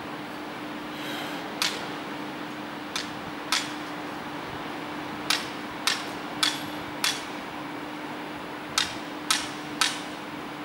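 Hand hammer striking sharply, about ten blows in small groups roughly half a second apart, over a steady low hum.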